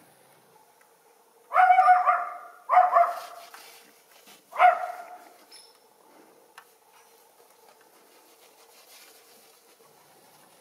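Schipperke barking three times in quick succession, starting about a second and a half in: small-dog barks, high-pitched, the first two slightly drawn out and the third shorter.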